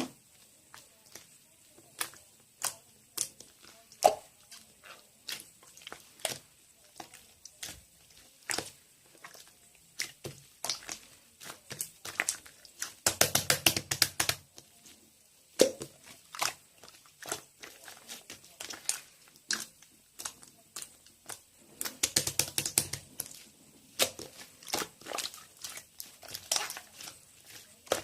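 Close crackling and crunching: a string of sharp clicks, with two denser bursts of crackling about thirteen and twenty-two seconds in.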